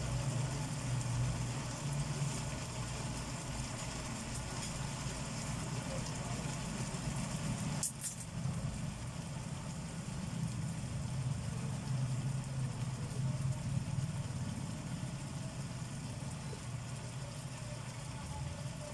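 Steady low rumble of a lit gas stove with a pan of chicken gizzard adobo simmering on it, and one brief click about eight seconds in.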